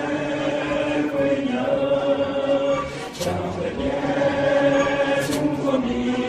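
Background music of a choir singing long held notes.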